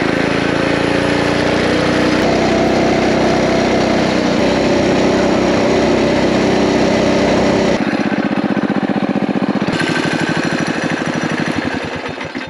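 HiSun 196cc single-cylinder engine on a mini bike with a Mikuni VM22 clone carburetor, pulling hard on a ride, its pitch slowly climbing as the bike reaches about 41 mph. About eight seconds in the engine note drops, and it fades as the bike slows.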